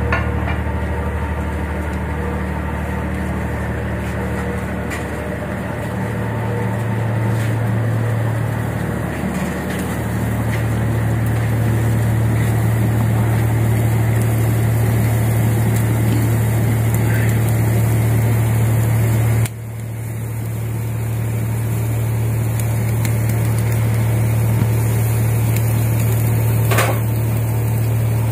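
A boat's engine running steadily with a low hum, cut off abruptly for a moment about twenty seconds in.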